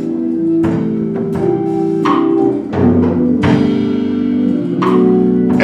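Church band music: held keyboard chords that change every second or so, with drum and cymbal hits.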